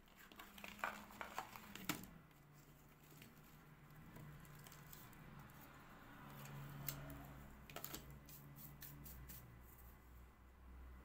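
Thin, brittle scraps of cast stone powder cracking and snapping as they are broken up by hand. The sound is faint and comes as two bunches of small sharp cracks, one near the start and another a little past the middle.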